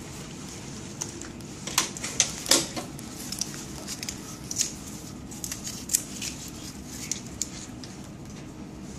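Clear plastic fluid bags and tubing being handled: an irregular run of crinkles and clicks, loudest about two seconds in and thinning out near the end.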